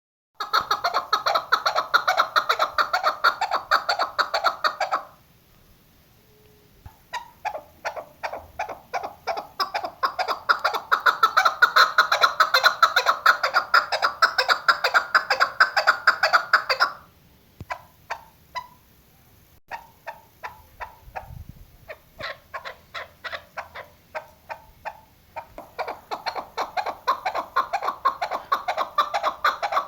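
Female chukar partridge calling in rapid series of short repeated notes. The calling stops briefly about five seconds in and again around seventeen seconds. Softer, sparser notes follow until a loud bout resumes near the end.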